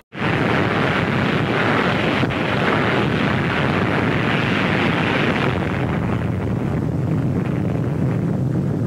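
Sustained rumble of a huge explosion, a steady wall of noise. About five and a half seconds in its hissing upper part fades, leaving a low rumble.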